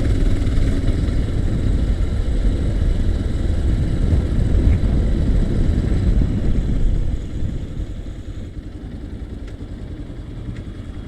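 Bajaj Pulsar 220F single-cylinder motorcycle engine running while riding, with a dense low rumble. It gets quieter from about seven seconds in.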